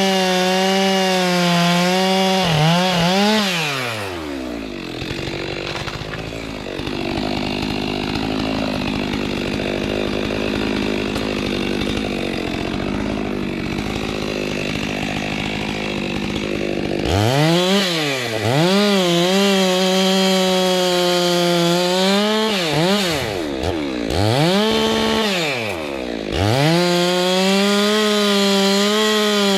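Two-stroke chainsaw running at high revs, then dropping to a low, rough idle for about thirteen seconds. It is then revved up and down several times and held at full throttle again near the end.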